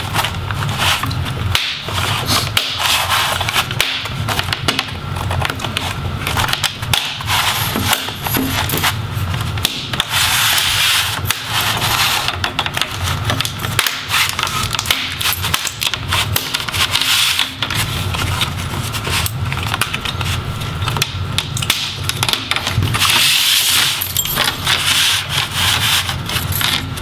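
Plastic laptop display bezel being pried away from the screen assembly: continuous rubbing and scraping of plastic on plastic, with many small clicks as the snap clips around its edge release.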